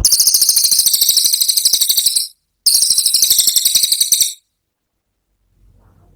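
Cililin coklat songbird singing its rapid 'tembakan' trill: a very high, fast run of about fifteen notes a second, in two bursts of about two seconds and a second and a half with a brief break between, then it stops.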